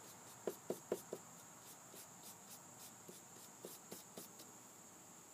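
Paintbrush dabbing and scrubbing paint on sketchbook paper: faint, with a few soft taps about half a second in and a few more near four seconds.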